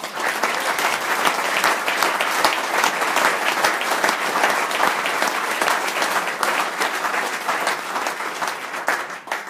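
An audience applauding, a dense steady clapping that stops sharply near the end.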